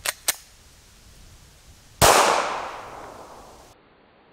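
A single 9mm pistol shot about two seconds in, its report fading over a second and a half before it cuts off abruptly. Two faint clicks come just before it, near the start.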